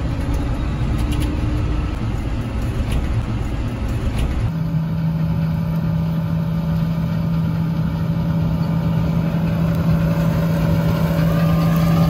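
Tractor engine and cab noise as it drives along the road. About 4.5 s in, this gives way to a John Deere combine harvesting wheat: a steady hum with a strong low drone that grows slightly louder as the combine comes closer.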